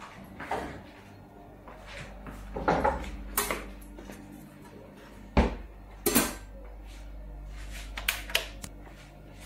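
Metal cookware clattering on a gas stove as a pot and its lid are handled: a series of sharp clanks and knocks, the loudest two about five and six seconds in. A low steady hum runs underneath.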